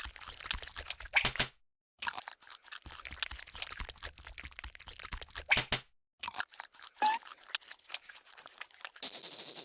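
Cartoon crunching sound effects, crackly like chewing, in several stretches broken by brief silences, with a short squeak about seven seconds in.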